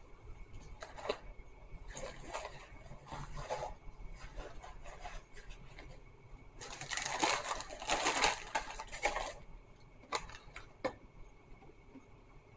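Paper fast-food packaging rustling and being handled in bursts, the longest and loudest about seven seconds in, with a couple of sharp clicks near the end.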